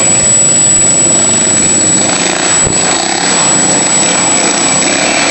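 Racing lawnmower engines running loud and steady.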